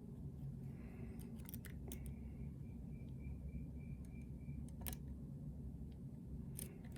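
Lock pick and tension wrench working the pins of a pin-tumbler lock: small, faint metallic clicks and scrapes, with a quick run of light repeated ticking in the middle, over a low steady hum.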